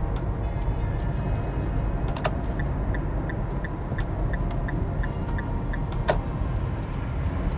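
Road and tyre rumble inside the cabin of a Nissan Fuga Hybrid gliding on its electric motor, with the petrol engine shut off. About two seconds in a stalk clicks and the turn-signal indicator ticks about three times a second, stopping with another click about six seconds in.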